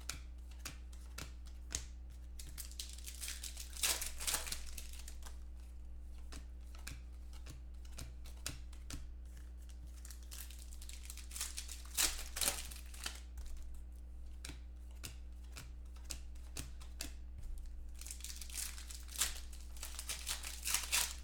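Foil wrappers of 2014 Panini Contenders football card packs crinkling and tearing as the packs are opened by hand, with light clicks of the cards being handled. The loudest crinkling comes about four seconds in, around twelve seconds, and again near the end.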